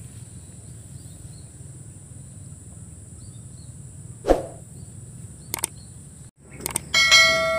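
A steady high-pitched insect drone over quiet outdoor ambience, with a single brief thump about four seconds in. Near the end come mouse-click sound effects and a loud ringing bell chime from a subscribe-button animation.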